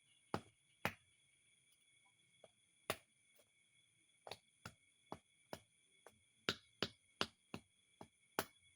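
A series of sharp, irregular clicks or taps, about fifteen, coming faster near the end, over a faint steady high-pitched whine.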